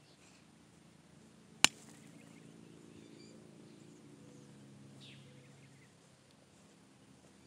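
A single sharp thump of a foot kicking an American football, about a second and a half in, over faint bird chirps.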